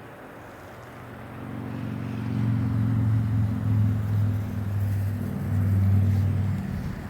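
A motor vehicle's engine hum passing by. It grows louder from about a second in, stays loud through the middle and fades near the end.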